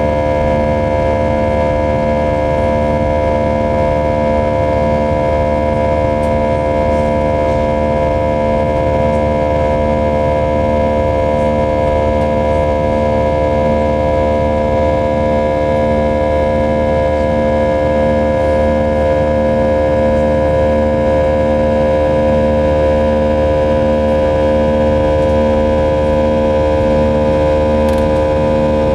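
An Airbus A320's IAE V2500 turbofan engines heard from inside the cabin over the wing, running steadily in the climb: a loud, even whine of several held tones over a low rumble. One low tone pulses evenly, about one and a half times a second.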